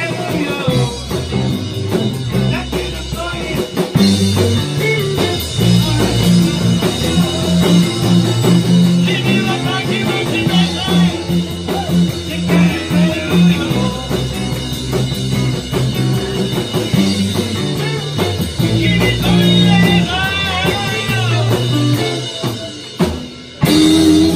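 Live rock and roll band playing: two electric guitars, electric bass and drum kit, with a wavering lead line over a steady bass part. Near the end the band drops lower for a moment, then comes back in loud.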